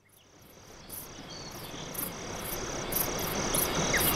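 Nature ambience of insects chirping in an even rhythm, about three pulses a second, over a steady hiss; it fades in from silence and grows louder.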